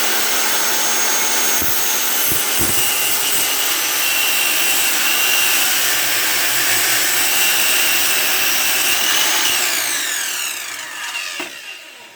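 Chicago Electric 12-amp 7¼-inch circular saw running and cutting through a 2x4. About ten seconds in the trigger is released and the motor winds down, its pitch falling as the blade coasts to a stop.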